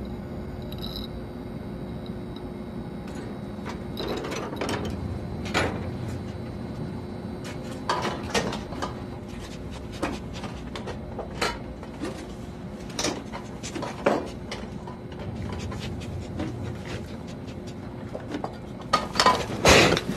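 Quiet film room tone with a steady low hum, broken by scattered single knocks and bumps. A quick run of louder knocks and thuds comes near the end.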